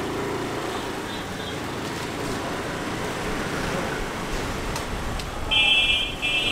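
Steady road traffic noise, then near the end an electronic horn beeping in short repeated blasts, about two a second.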